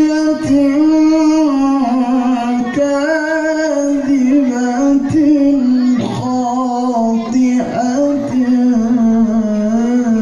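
A qari's voice reciting the Qur'an in the melodic tilawah style: long notes held and slowly bent, with small ornamented turns between them.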